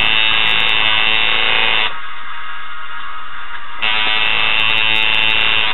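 Electric tattoo machine buzzing as it lines the outline into skin. It runs for the first two seconds, stops, and starts again about four seconds in.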